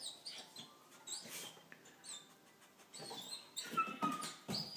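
Dog whining in short, high-pitched squeaks, repeated several times, with a longer falling whine near the end: the anxious whimpering of a dog reluctant to go down the stairs.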